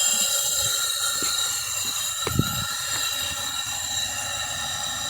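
5-inch Lunkenheimer-style chime whistle with a fabricated bell, blowing one long steady blast of several chime tones sounding together. There is a brief low thump about two seconds in.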